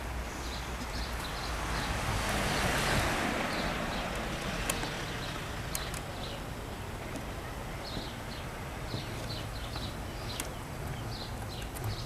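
Wind rushing over the microphone, swelling a couple of seconds in, with small birds chirping in the background and a few faint clicks.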